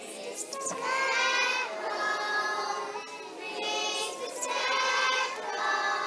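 A large group of young children singing a song together in unison, in phrases with short breaks between them.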